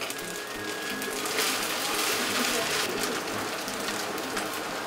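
Fried rice sizzling in a frying pan on a gas stove, the hiss swelling for a second or so in the middle, over light background music.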